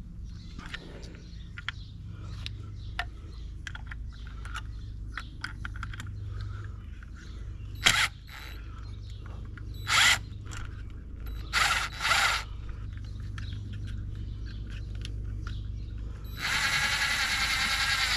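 Cordless drill driving the screws down on a sand filter's multiport valve cover. There are several short spins a couple of seconds apart, then a longer steady run near the end, with small clicks from handling the screws between them.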